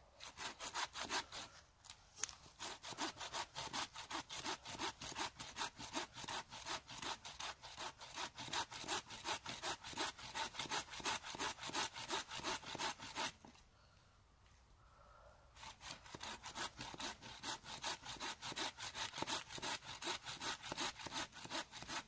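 Hand saw cutting through a thin felled conifer pole, in steady back-and-forth strokes. The sawing stops for about two seconds just past halfway, then starts again.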